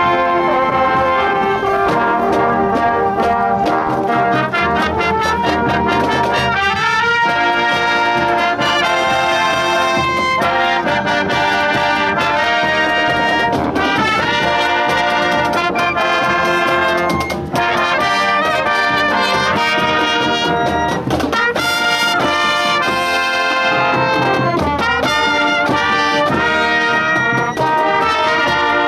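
Junior high school marching band playing live: trumpets, trombones and sousaphones carry the tune over snare, bass drum and drum kit, with sliding glissandi in the brass twice.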